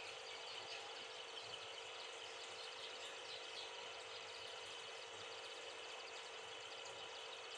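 Steady aquarium background noise: a constant low hum with a faint fizzing crackle of tiny ticks over it, unchanged throughout and with no distinct events.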